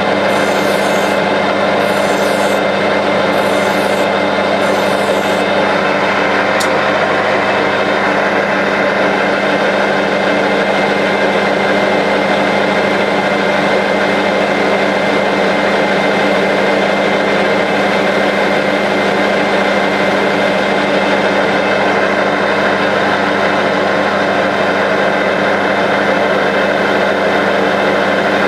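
Metal lathe running steadily, its motor and gearing giving a constant hum. In the first few seconds a hand file rasps across the spinning workpiece about once a second to break the edge. The part is then rubbed with abrasive cloth and a Scotch-Brite pad under the running lathe.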